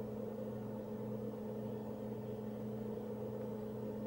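Steady low hum with a few constant pitches and no impact or other distinct sound.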